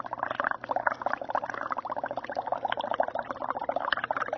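Exhaled breath blown into bromothymol blue indicator solution, the liquid bubbling in a rapid, continuous stream of small pops. The carbon dioxide from the breath is dissolving to form carbonic acid and turning the indicator from blue to yellow.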